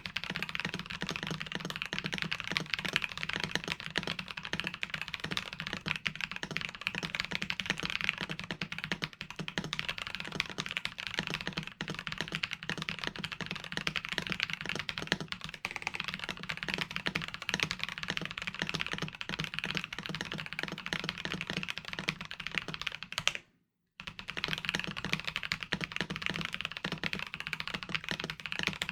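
Continuous fast typing on an FL MK870 mechanical keyboard with lubed, filmed Penguin tactile switches, foam-stuffed case and lubed stabilizers: a dense run of keystrokes. The sound cuts out completely for about half a second around 23 seconds in, then the typing resumes.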